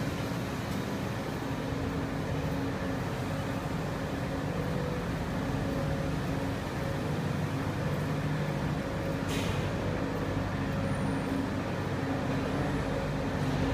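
Steady low mechanical hum over a rumbling noise, with a brief hiss about nine seconds in.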